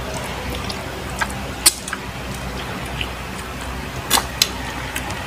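A few short, sharp mouth clicks and smacks of people eating mango slices by hand, over a steady low background hum.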